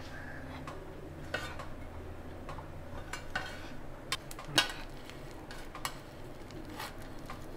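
A metal spatula scrapes and clinks against a stainless-steel steamer plate, with a few sharp clinks. The loudest clink comes about four and a half seconds in, over a low steady hum.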